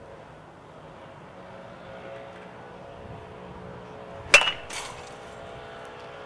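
A metal Louisville baseball bat hitting a ball off a batting tee: one sharp, ringing ping about four seconds in, followed half a second later by a fainter knock.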